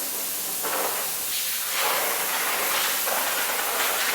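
Compressed-air blow gun blowing dust off a carbon-fibre part: a steady hiss that swells several times.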